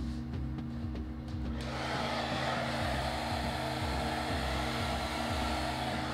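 Handheld hot-air blower, a craft heat gun, switched on about a second and a half in and blowing steadily over wet epoxy resin, then cut off at the end. Hot air like this is played over fresh resin to pop surface bubbles.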